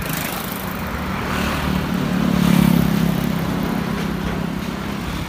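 A motor running steadily with a low hum and a noisy hiss above it. It swells to its loudest about two and a half seconds in, then eases back.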